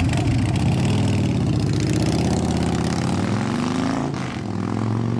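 V-twin motorcycle engine running and revving through its exhaust, the pitch climbing and falling back, with a brief drop about four seconds in.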